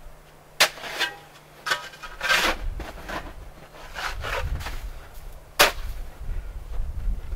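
Snow shovel digging into packed, crusty snow: three sharp knocks as the blade strikes, about half a second in, near two seconds and again late on, with rough scraping as it is driven in and the snow is lifted.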